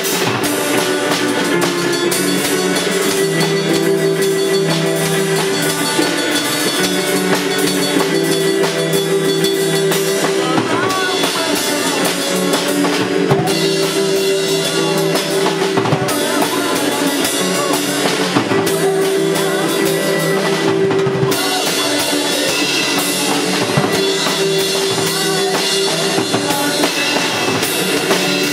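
Rock band playing live: a drum kit keeps a steady beat under sustained guitar and bass chords.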